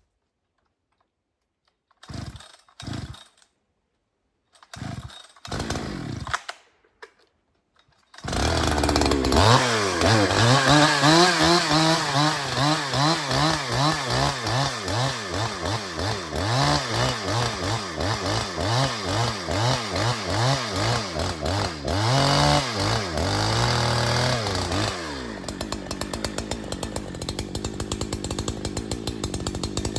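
A large, heavy chainsaw is pull-started: several short bursts as the cord is pulled, then the engine catches about eight seconds in. Its engine speed rises and falls over and over, and it drops to a steady idle near the end.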